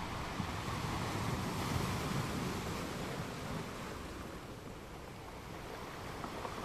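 Ocean surf: a wave breaks and rushes up, swelling to its loudest about two seconds in and then washing back down before the next one builds near the end.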